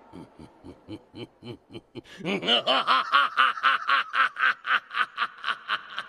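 A man's deep laughter in rhythmic 'ha's, about four a second. It starts as a low chuckle and breaks into a loud, full-throated laugh about two seconds in.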